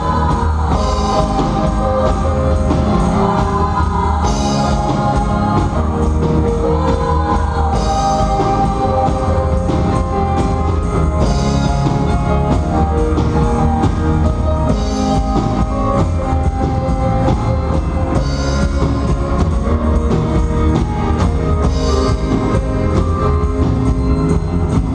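Music with singing over a steady bass and drums, with a bright cymbal-like splash about every three and a half seconds.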